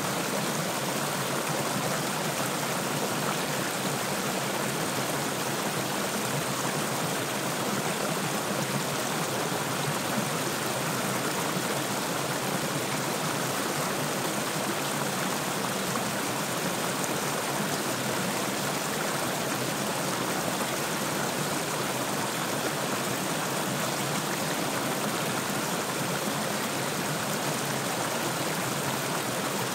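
A small stream running and splashing over a low rock ledge in small cascades, a steady rushing of water.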